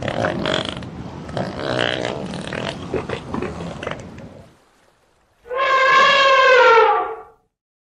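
An elephant trumpets once, about five and a half seconds in. The call is loud, high and brassy, lasts nearly two seconds and drops in pitch at the end. Before it there are a few seconds of rough outdoor background noise, then a brief hush.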